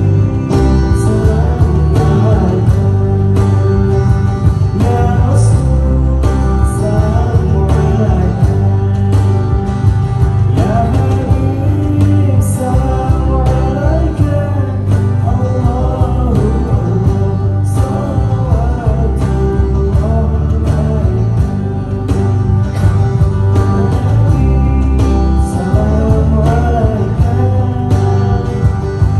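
Live band music with a steady beat and a strong bass, and a wavering melody line over it.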